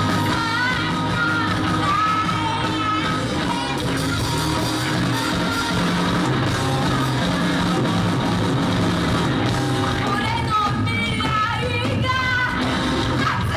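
Rock band playing a song live in a hall, a lead singer's melody over the band's guitar, bass and drum backing.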